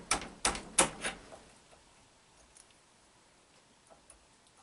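Sharp metal-on-metal taps on a Chevy starter's armature shaft as the drive's retaining clip is worked down into its groove. The taps come about three a second for the first second or so, then stop, leaving a few faint ticks.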